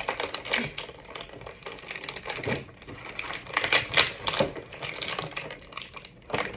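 Clear plastic bag crinkling and crackling as it is handled and pulled open to free small plastic toy figures, in quick irregular crackles with louder bursts around two and a half and four seconds in.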